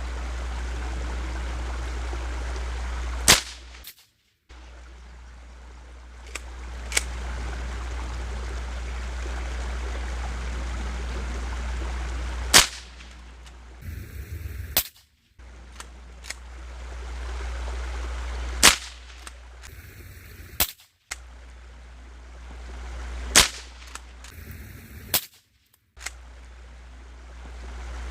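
Remington Fieldmaster Model 121 pump-action .22 rifle firing four sharp shots several seconds apart, with fainter clicks between them. A steady low rumble runs underneath and drops out briefly a few times.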